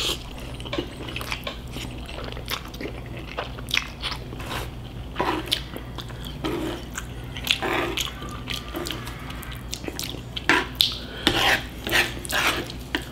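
Close-up chewing of spicy cold noodles, with many short wet mouth clicks and smacks. Near the end, chopsticks tap and scrape on the plate as the noodles are stirred.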